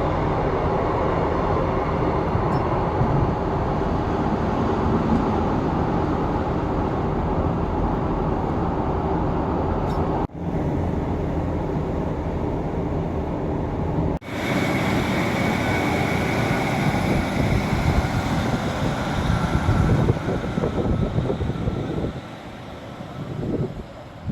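Passenger train running, a steady rumble heard on board. It breaks off abruptly about ten and again about fourteen seconds in, comes back with a slightly different sound and a faint whine, and drops in level near the end.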